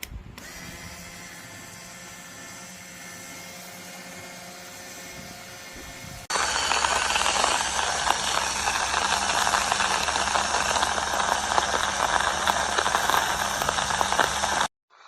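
Portable battery-powered electric coffee bean grinder running: a steady motor hum at first, then from about six seconds in a much louder, dense crackling grind that cuts off suddenly near the end.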